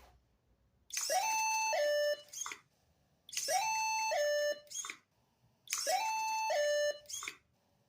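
Squirreldine bird feeder's electronic cuckoo call sounding three times, about two and a half seconds apart. Each call is a held higher note dropping to a lower one, the alarm the feeder plays when its perch sensor switches are tripped.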